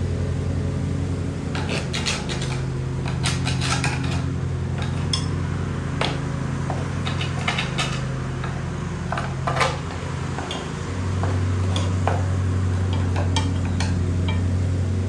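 Irregular metallic clinks, taps and scrapes of hand tools on a steel mower deck, which fit scraping packed grass buildup off the deck's underside. Under them runs a steady mechanical hum that changes pitch about ten seconds in.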